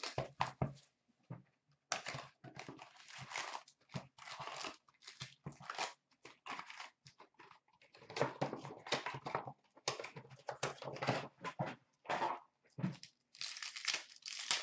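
Plastic shrink wrap and foil card-pack wrappers crinkling and tearing in irregular rustling spurts, as a hobby box of Upper Deck hockey cards is unwrapped and its packs are handled and torn open.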